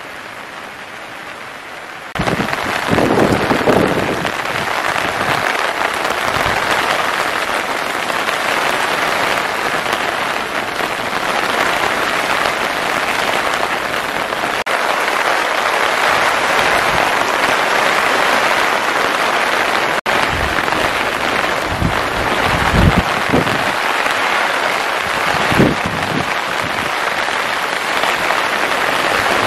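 Steady rain falling on a hexa tarp overhead and the wet gravel around it, starting suddenly about two seconds in, with a few louder drops thudding now and then.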